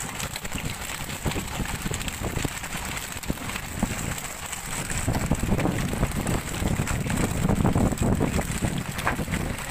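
Wind buffeting the microphone outdoors: an uneven, gusty rumble that grows stronger about halfway through.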